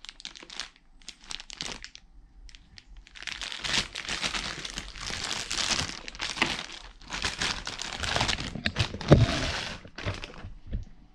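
Clear plastic packaging bags crinkling and rustling as bagged hydraulic brake hoses and parts are handled and pulled out of a cardboard box. The rustling is sparse at first and fuller from about three seconds in, with a knock a little after nine seconds.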